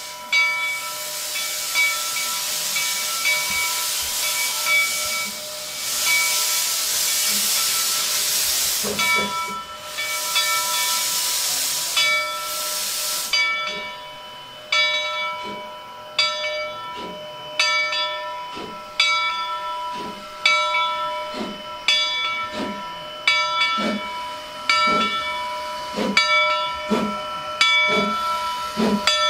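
Monson No. 3, a small two-foot-gauge steam locomotive, blowing a loud steady hiss of steam from its open cylinder cocks, which cuts off suddenly about 13 seconds in. Then slow, even exhaust chuffs follow, a little over one a second, as the locomotive pulls away at low speed.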